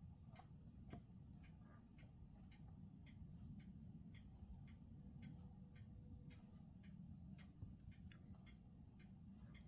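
Near silence with a faint, regular ticking, about two or three ticks a second, over a low steady rumble.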